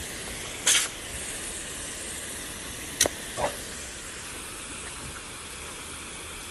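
Garden hose spray nozzle shooting a steady jet of water, a continuous hiss. A few brief sharp clicks break it, one just under a second in and two around three seconds in.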